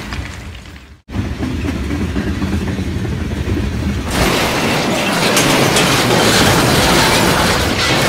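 Dubbed-in train sound effects: a low rumbling train that cuts out abruptly about a second in and then resumes. About four seconds in, a loud, sustained crash effect of smashing and breaking takes over.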